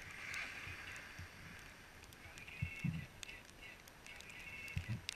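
Skis sliding over snow: a soft, steady hiss of the bases and edges on the snow, with a few short low thumps.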